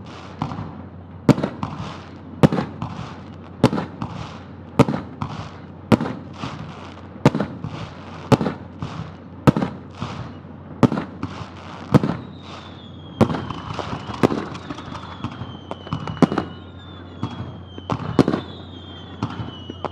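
Aerial fireworks shells bursting about once a second in a steady run of sharp bangs, each trailing off in echo and crackle. From about halfway through, whistling tones that slide downward in pitch sound over the bursts.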